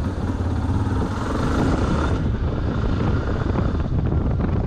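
Motorcycle engine running, with wind noise on the microphone.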